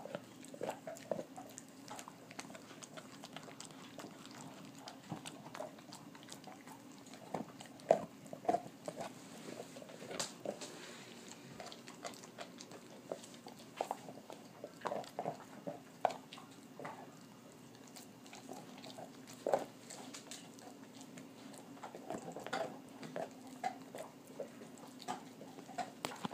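A dog gnawing and chewing on a raw beef rib bone: irregular clicks and crunches of teeth on bone and meat, a few much louder than the rest.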